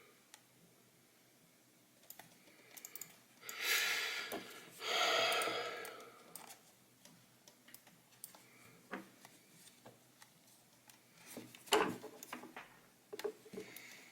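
Scattered small clicks and knocks of plastic computer-mouse parts being handled and fitted together during reassembly. Two louder rushing sounds of about a second each come around four and five seconds in.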